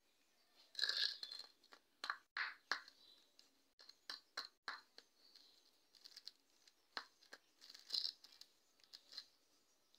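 Rabbits moving about in a wire cage: a run of irregular sharp clicks, scratches and rustles, loudest about a second in and again near eight seconds.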